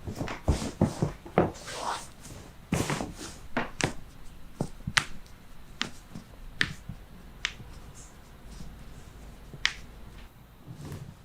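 Joints cracking and popping under chiropractic adjustments: a series of about a dozen short, sharp pops at irregular intervals, with some brief rustling among them in the first few seconds.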